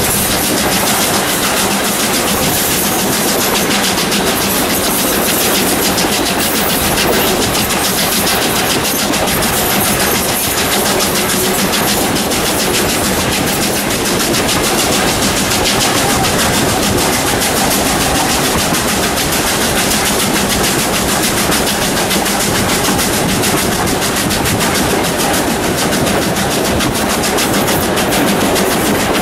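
Steam locomotive 621 hauling a train, heard from an open carriage window behind it: a steady din of the engine working, wheels on the rails and air rushing past the microphone.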